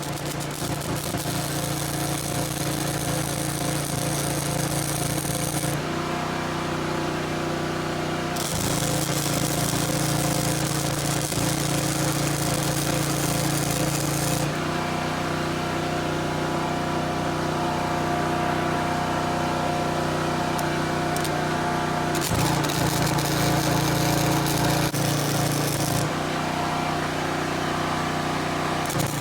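Welding arc crackling and hissing in several runs of a few seconds each, stopping and starting between beads, over the steady hum of a running generator engine.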